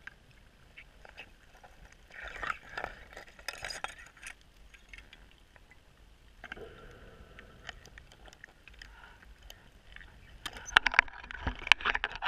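Underwater scuba breathing through a regulator, with exhaled bubbles gurgling in two or three bursts. Near the end there is a quick run of sharp clicks and knocks.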